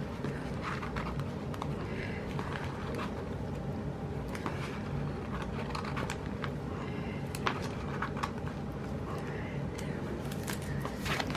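Light clicks and rustles of paper stickers and a planner being handled, over a steady low room hum.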